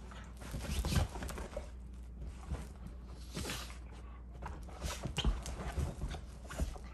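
Two dogs play-wrestling on a fabric couch: irregular scuffling and soft thumps of paws and bodies on the cushions, loudest about a second in and again past the five-second mark.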